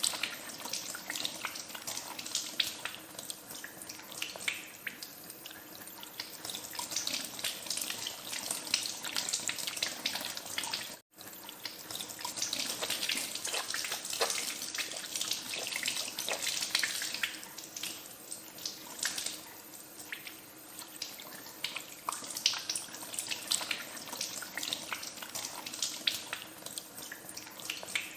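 Tap water running into a sink as hands are washed under the stream, a steady splashy hiss with many small splashes and drips. The sound cuts out for an instant about eleven seconds in.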